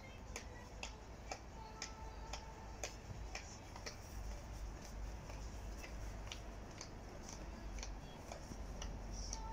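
Regular sharp ticking, about two ticks a second, over a steady low rumble.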